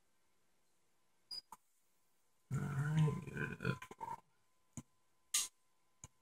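A person's low, wordless vocal sound lasting under two seconds, about two and a half seconds in. Around it are a few sharp clicks as buttons on a handheld remote are pressed.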